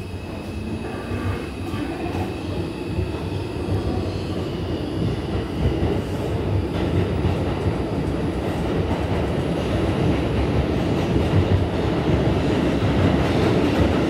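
Running noise heard from inside an R142 subway car as it pulls out of the station: motor and wheel-on-rail rumble that grows steadily louder as the train picks up speed into the tunnel.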